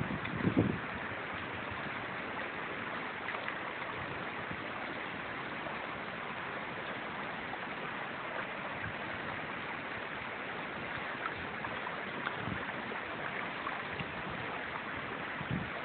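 Shallow stream water rushing steadily over a gravel riffle, an even hiss.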